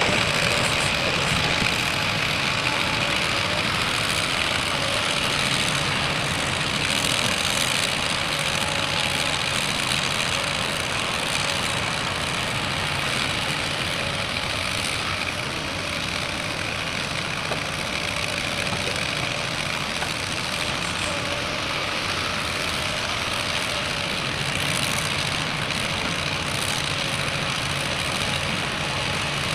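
A heavy vehicle engine running steadily at a constant pitch under a broad hiss, with no changes in speed.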